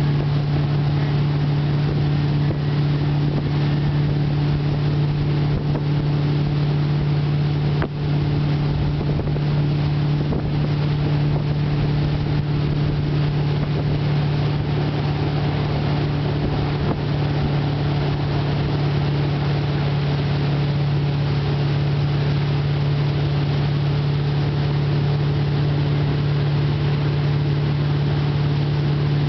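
Motorboat engine running steadily at towing speed, a constant drone, with wind rushing over the microphone.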